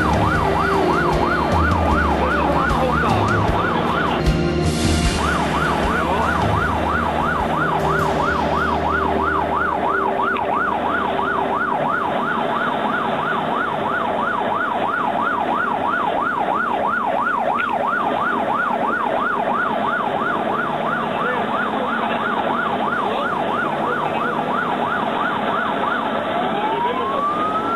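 Fire engine's siren on a fast yelp, about three sweeps a second, heard from inside the cab with the truck's engine running underneath. The siren breaks off for a moment about four seconds in. Near the end it changes to one slow rising and falling wail.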